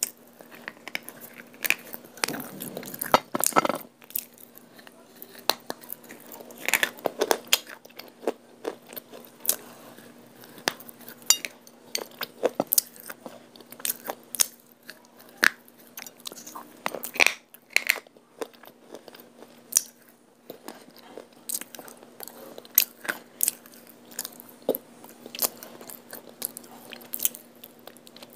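Close-up crunching and chewing of hard white clay chunks dipped in multani mitti paste: irregular sharp cracks of biting and grinding, with a few louder bites.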